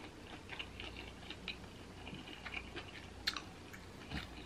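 Faint scattered wet clicks and ticks as fingers dig a boiled potato out of a glass bowl of thick seafood-boil sauce and lift it out, with one sharper click about three seconds in.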